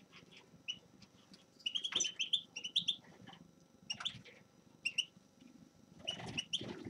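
Small finch singing in short clusters of high chirps and twitters, with brief pauses between them.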